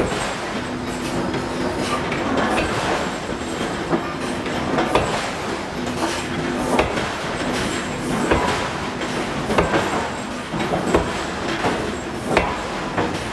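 Forge shop machinery: a steady hum with repeated metal knocks and clanks, some coming about every second or so.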